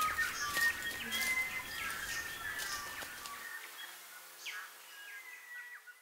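Native forest birdsong, several birds calling at once with clear whistled notes and short falling calls, over the crackle of dry leaf litter as a weka walks through it. The sound thins out and fades away over the last few seconds.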